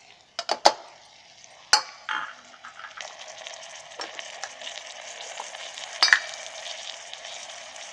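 Onions and freshly added tomato slices sizzling in hot oil in an electric kettle while being stirred. A few sharp knocks of the stirring utensil against the kettle come in the first two seconds and once more about six seconds in; from about three seconds in the sizzle runs steady.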